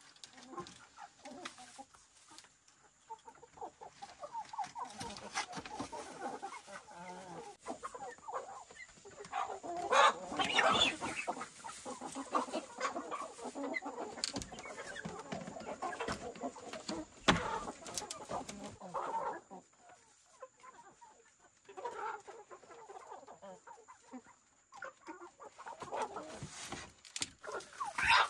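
Chickens clucking on and off, loudest about ten seconds in, with a single sharp knock a little past the middle.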